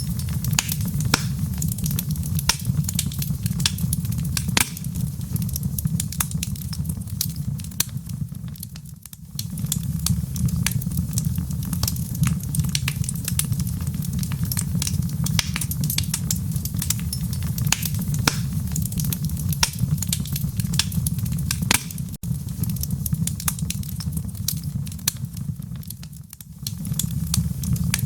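Wood fire crackling in a fireplace: frequent irregular sharp pops over a steady low rumble, briefly dipping in loudness twice.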